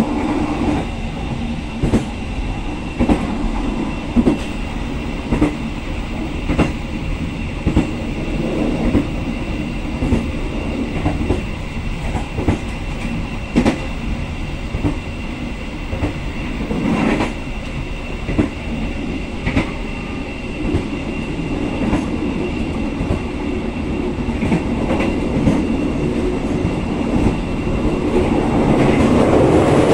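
Passenger train running along the line, its wheels clacking over rail joints in an irregular series of sharp knocks over a steady rumble. It grows louder in the last couple of seconds.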